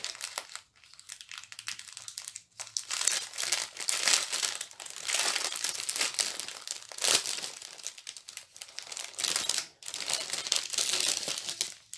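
Plastic packaging of a diamond painting kit crinkling and rustling as it is handled, in irregular stretches broken by a few short pauses.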